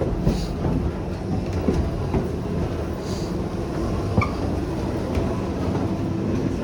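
Old mill machinery running: a steady rumble with scattered knocks.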